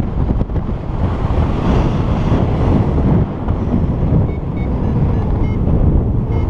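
Airflow buffeting an action camera's microphone in paraglider flight, a loud steady low rumble. A few faint short electronic beeps come in the second half.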